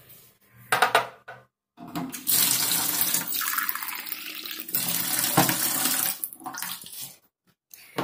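Kitchen tap running into a glass coffee carafe, filling it with water for about five seconds before it stops. A short loud bump about a second in comes before it.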